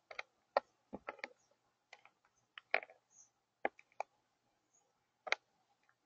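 Crow pecking at seed and nuts on a feeding table: a string of irregular sharp beak taps and clicks, a dozen or so.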